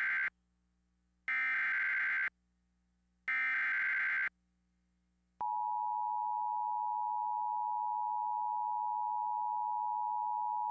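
Emergency Alert System alert tones. First come the last of three SAME header data bursts, each a harsh buzzing warble about a second long with a second's gap, encoding a severe thunderstorm warning. About five seconds in, the steady two-tone EAS attention signal starts and holds.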